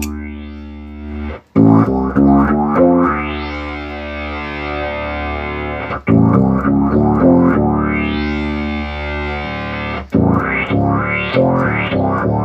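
Bass guitar played through an Electro-Harmonix Bass MicroSynth pedal that has just been repaired after overvoltage damage, now working again: synth-like distorted notes whose filter sweeps upward after each attack, with short runs of notes about two, six and ten seconds in.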